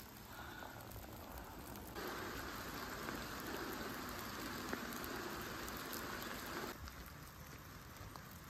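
Steady watery patter and hiss. It steps up to a louder stretch about two seconds in and drops back just before the end.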